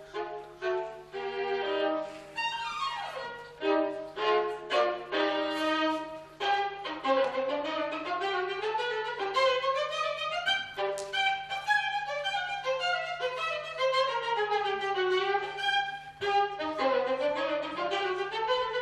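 Solo violin playing unaccompanied, with fast runs and arpeggios sweeping up and down.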